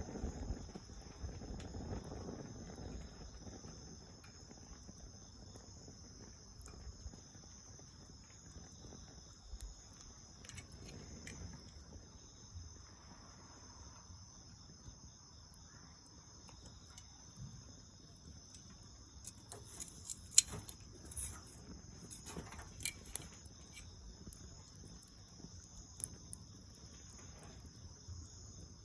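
Steady high-pitched trilling of crickets, with scattered crackles and sharp pops from a fire of dried soyogo leaves and branches, the loudest pop about twenty seconds in. A low rush is heard in the first few seconds.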